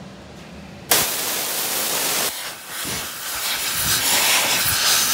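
Compressed-air blow gun hissing as it blasts metal chips off a freshly milled breech plug and its chuck, starting abruptly about a second in, with a brief dip partway through.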